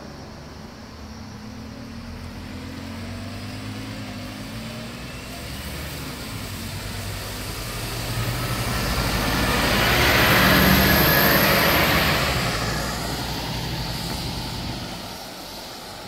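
A single-deck bus drives past, its engine and tyre noise building to a peak about ten seconds in and then fading away.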